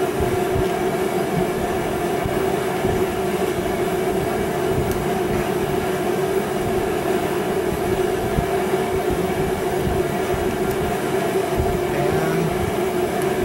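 Shop heater running with a steady drone and a hum of two held tones, with a few faint ticks of small metal hand work on a piston.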